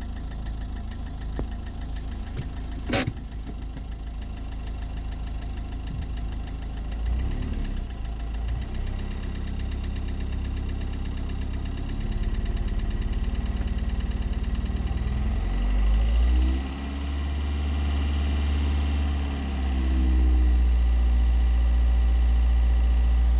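Renault K9K 1.5 dCi diesel engine running with a knock that the owner puts down to a faulty injector, with fault code P0204 for cylinder 4's injector circuit. There is a single sharp click about three seconds in, and the revs rise and fall in the second half.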